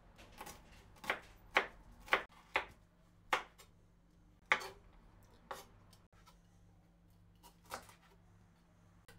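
Chef's knife chopping vegetables on a wooden cutting board: a series of sharp, unevenly spaced knife strikes that thin out after about five seconds.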